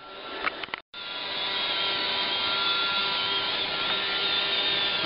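Roomba robot vacuum running: a steady whir with a high, slightly wavering motor whine. The sound cuts out briefly about a second in, then goes on steadily.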